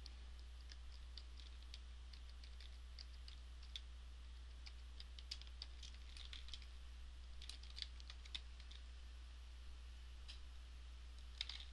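Computer keyboard typing: faint, irregular keystrokes, over a steady low hum.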